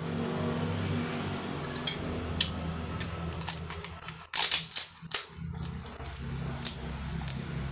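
A motor vehicle engine running steadily, with a brief dip about four and a half seconds in. Over it come scattered sharp clicks and clatters of eating, such as utensils on a plate and crunching crackers, loudest about four and a half seconds in.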